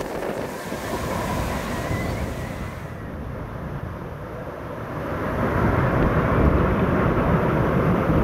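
Wind buffeting the microphone in gusts, a rushing noise that grows louder and deeper about five seconds in.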